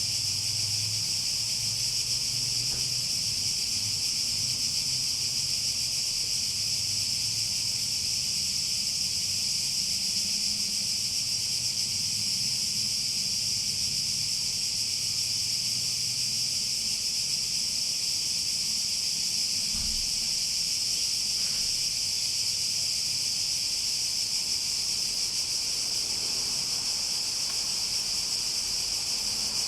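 Chorus of cicadas buzzing steadily in a continuous high drone, with no pause or change in pitch.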